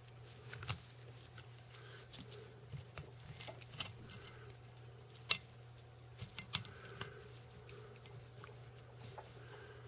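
Faint, scattered light clicks and ticks of hands working a bobbin and tying thread onto a tube fly in a fly-tying vise, over a steady low hum.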